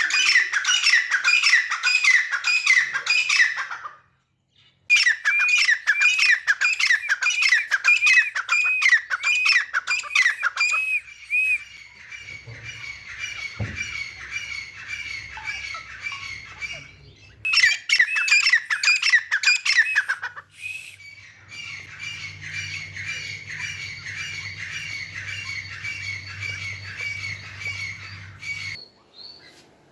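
Grey francolin calling: long runs of fast, repeated, harsh notes, loud for the first eleven seconds with a short break about four seconds in. The calling then goes on more quietly, with a loud spell around eighteen to twenty seconds, over a low steady hum.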